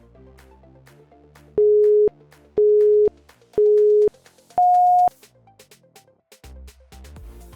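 Workout interval-timer countdown: three identical half-second beeps a second apart, then a higher-pitched beep marking the switch to the next exercise, over quiet electronic background music.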